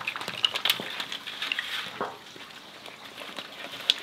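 Boiled shrimp, crab, mussels, corn and potatoes sliding out of a perforated strainer basket onto a paper-towel-covered table: a rustling clatter of many small shell clicks. It is busiest for the first couple of seconds, then thins to scattered clicks.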